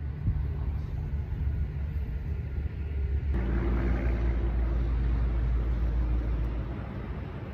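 Steady low outdoor rumble. About three seconds in it changes abruptly, adding a faint steady hum and hiss.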